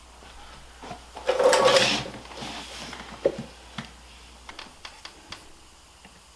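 Someone settling in at a desk: a brief scraping rustle about a second in, then a few light clicks and taps as a laptop is opened and its keys and trackpad are touched.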